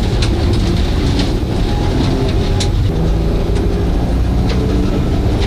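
Inside the cabin of a VR Holden Commodore rally car at speed on a gravel stage: the engine runs under load over a heavy road rumble, its note rising through the middle, with a few sharp ticks.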